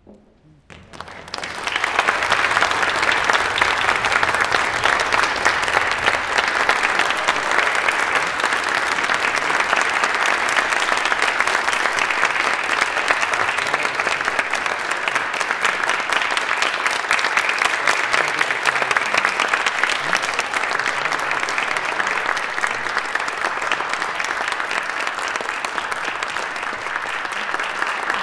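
Audience applauding: a brief hush, then clapping breaks out about a second and a half in and goes on steadily.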